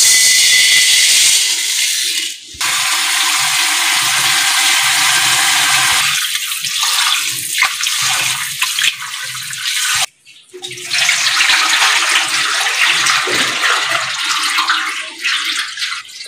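Dry rice grains pouring into a steel bowl with a hiss, then tap water running into the bowl while hands swish and rub the rice to wash off the starch. The water runs steadily, with a brief break about ten seconds in.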